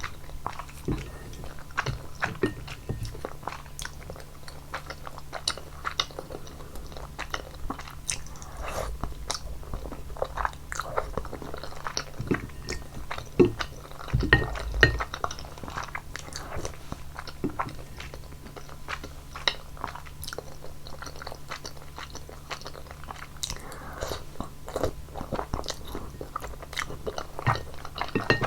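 Close-miked eating sounds of thick udon noodles in a basil cream Buldak sauce: continuous wet chewing with many small irregular mouth clicks and smacks, and a louder low thump about halfway through.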